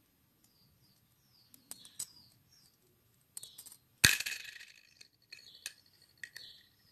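Gold-tone metal earrings being set down on a hard tiled surface: a few light clicks, then a sharp metallic clink about four seconds in that rings briefly, followed by softer taps as they are arranged.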